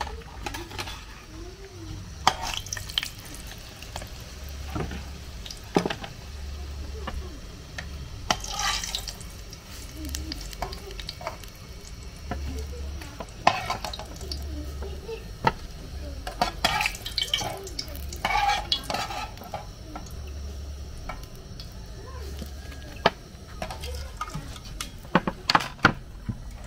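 Plantain dough pastries frying in a pan of hot oil, with a metal slotted spatula scraping and clinking against the pan as pieces are turned and lifted out. Sharp clinks come at irregular moments throughout.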